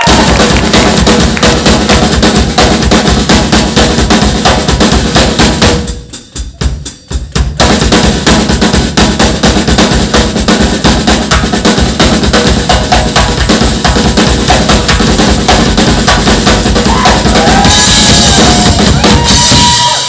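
Drum kit solo: fast, dense snare and bass-drum hits with rolls, thinning to a few scattered strokes for a moment about six seconds in before resuming, and a loud cymbal wash near the end.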